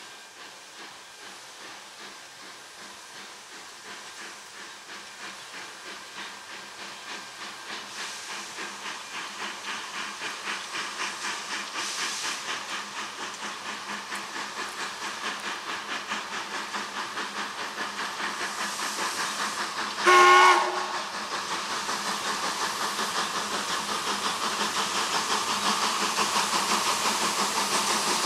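Steam locomotive 477.043 (ČSD class 477.0) working steadily, its exhaust beats growing louder as it approaches. One short, loud blast of its steam whistle about twenty seconds in.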